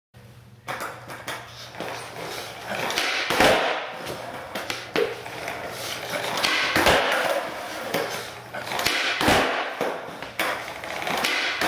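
Skateboard wheels rolling on a concrete floor, with the board clacking and slapping down on the concrete several times as the skater sets up and tries flip tricks.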